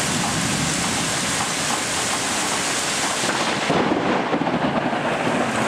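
Heavy thunderstorm rain pouring steadily. About three and a half seconds in, a louder, rougher rumble of thunder comes in over the rain.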